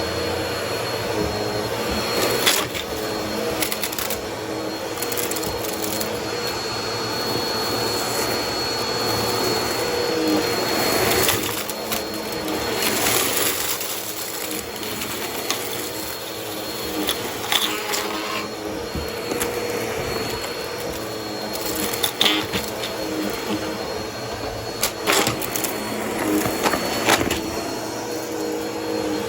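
Vacuum cleaner running on carpet with a steady high whine, sucking up crunchy debris: irregular crackles and clicks as bits rattle into the nozzle.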